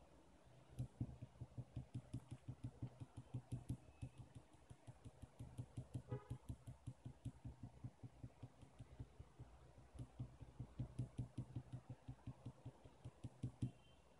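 Rapid light tapping, about four or five knocks a second in three runs with short pauses between them: a wooden skewer of chocolate-dipped marshmallows being tapped against the bowl of melted chocolate to shake off the excess.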